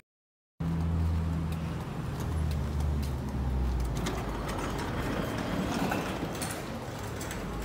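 Steady low hum of a car driving, heard from inside the cabin, starting after a brief silence. About four seconds in the hum drops away, leaving an even rushing background noise with a few faint clicks.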